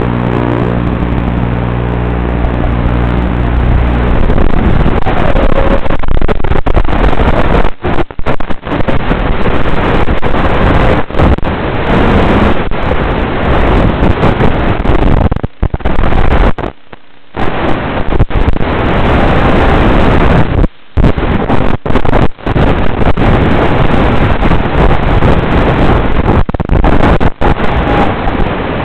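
An FPV racing wing's motor and propeller with wind rushing over the onboard microphone. A steady motor tone fades in the first few seconds into loud rushing noise, which cuts out briefly several times.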